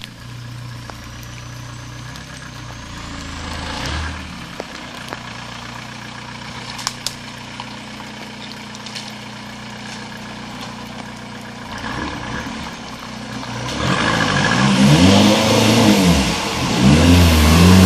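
TDI diesel engine in a converted Toyota 4Runner running at a steady idle, then, about three-quarters of the way in, revving up and down repeatedly and getting louder. A few sharp clicks sound near the middle.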